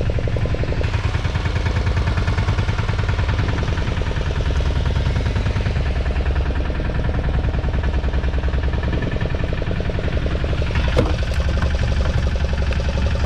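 A fishing boat's engine idling, a steady, rapid, even pulsing. A single sharp knock about eleven seconds in.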